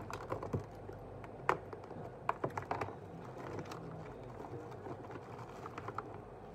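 A clear plastic bag of small parts being handled, crinkling and rustling in irregular crackles, with a few sharper clicks about one and a half to three seconds in. A steady low hum runs underneath.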